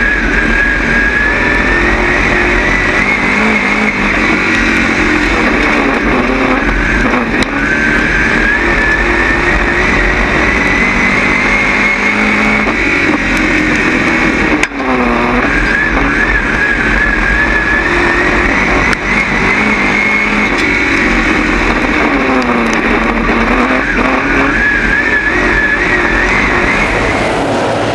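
Steel Head dirt late model race car's engine, heard from inside the cockpit, running hard at racing speed. Its pitch climbs in long sweeps down each straight and falls back as the driver lifts for the turns, about four times.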